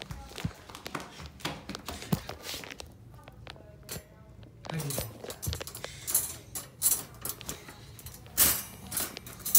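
Clicks, knocks and metal rattles of a wire dog crate being handled and opened, with a small dog stirring inside. The loudest rattles come near the end.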